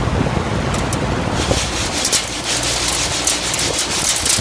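Attic fan running under a fan table, its airflow buffeting the microphone. From about a second and a half in, a dense rattle of many small clicks comes from dry black-eyed peas on the wire screen.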